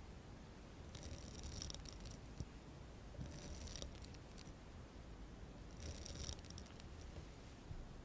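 Makeup tools handled close to the microphone in ASMR style: three short, soft scratchy bursts, roughly two and a half seconds apart.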